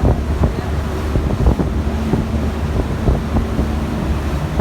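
Wind buffeting the microphone in irregular thumps over the steady low hum of a tour boat's engine and the rush of water along the hull.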